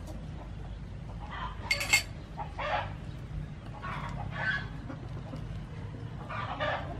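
Chickens clucking in short calls, four times, with a single sharp clink about two seconds in, over a steady low hum.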